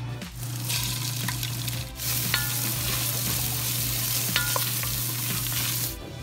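Sliced beef sizzling in hot oil in a stainless steel pot while a wooden spoon stirs and scrapes it, with a few light clicks of the spoon. The sizzle starts within the first second and grows louder about two seconds in.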